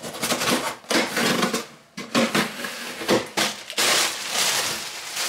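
Cardboard box flaps and contents being handled with irregular scratching and crackling, then plastic air-cushion packing crinkling steadily as it is pulled out of the box, from about four seconds in.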